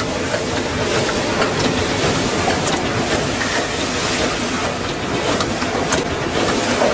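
Automatic CNC screen printing machine for jars running: a steady mechanical whir with sharp clicks and clacks at uneven intervals as it indexes and prints.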